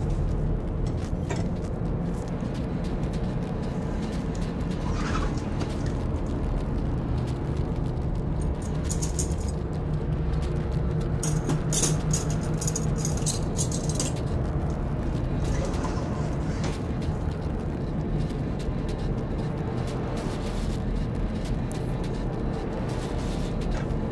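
Metal kitchen utensils clattering and clinking as a hand rummages through a cutlery drawer, heaviest about halfway through, over a steady low hum.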